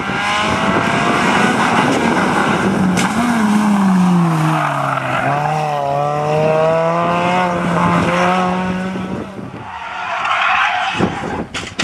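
Suzuki Swift rally car engine running at high revs on a gravel-dusted lane. Its note falls as the car brakes into a bend from about three to five seconds in, then holds steady as it drives off. Near the end a second rally car passes with a rougher, noisier sound.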